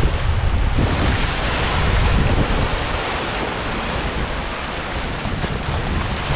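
Small waves washing up and breaking over sand at the water's edge, with wind rumbling on the microphone.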